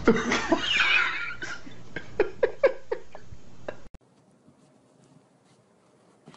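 Two small pets tussling on a wooden floor: a noisy scuffle, then a run of about five short, high cries. It stops abruptly about four seconds in, leaving only faint soft steps.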